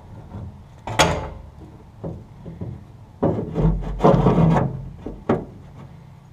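Rubber fuel-filler hose being twisted and worked through the sheet-metal trunk panel of a 1965 Ford Mustang, rubbing and scraping against the metal. There is a sharp knock about a second in, then a longer stretch of rubbing in the second half, ending in a click.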